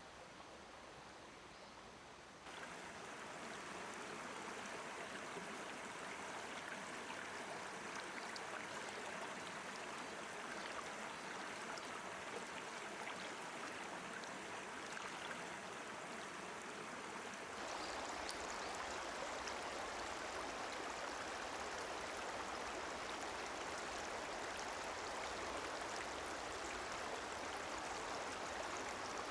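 A flowing stream: water running with a steady rush. It steps up louder a couple of seconds in and again just past halfway.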